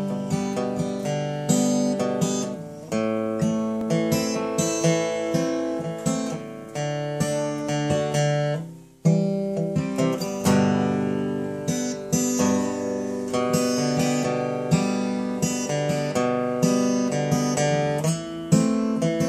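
Solo dreadnought acoustic guitar playing an instrumental intro, picked and strummed chords with a steady pulse. Just before the middle the sound dies away briefly, then a strongly strummed chord starts it again.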